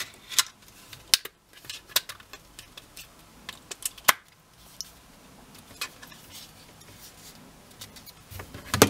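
Scattered clicks and taps of a plastic wireless charging pad, a smartphone and a USB cable being handled on a wooden desk, with the loudest clicks near the end as the cable plug is pushed into the pad.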